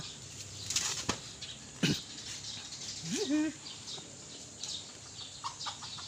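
Racing pigeon flapping its wings inside a plastic carrier box as it is caught by hand, with a few sharp knocks in the first two seconds.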